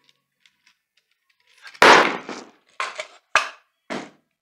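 Wooden jig blocks handled and set down on a wooden workbench. A loud clatter comes about two seconds in, followed by three sharp knocks of wood on wood.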